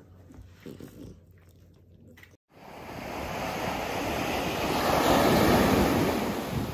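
Faint quiet sounds, then after a brief cut to silence a rush of sea surf and wind on the microphone that swells over a few seconds and eases slightly near the end.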